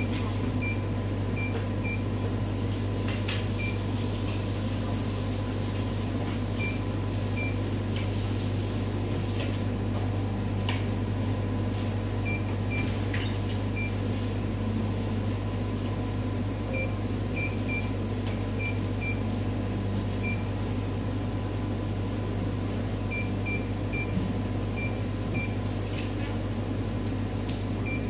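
Keypad beeps of a Cornley K-Lite 3 electrolyte analyser as quality-control target values are keyed in: short high beeps, one per key press, coming in quick groups of two to four, over a steady low hum.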